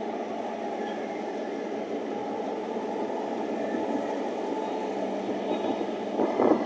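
Train passing through a station: steady noise of wheels on rails, with a brief louder clatter about six seconds in.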